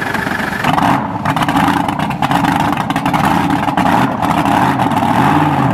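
Nitro-burning supercharged V8 of a front-engine 'cackle car' dragster running at a loud, crackling idle. It jumps in loudness about a second in.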